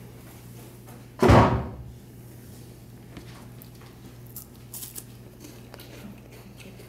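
A single dull thump about a second in, then a few faint light clicks over a low steady hum.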